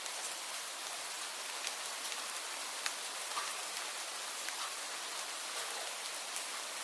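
Leaves blown by the wind, a steady hiss dotted with scattered light ticks.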